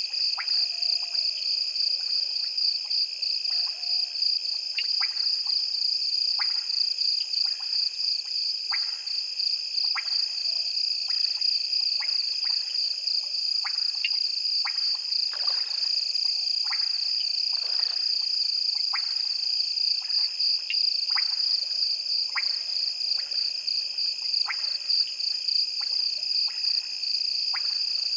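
Night chorus of frogs and insects at a waterhole: a steady, high, fast-pulsing trill, with short sharp frog calls like clicks about once a second.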